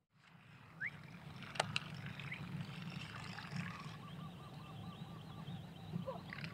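Cast with a baitcasting rod and reel: two sharp clicks, then a light, rapidly repeating whir for a couple of seconds as line pays off the spool, over a steady low hum.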